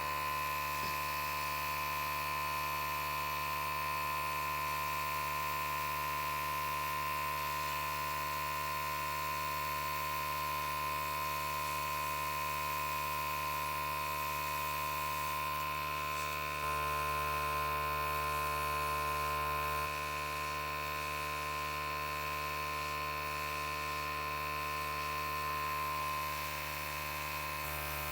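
Small handheld electric air gun running steadily with a constant motor hum and whine, blowing acrylic paint across a canvas in a Dutch pour. It gets a little louder for a few seconds past the middle.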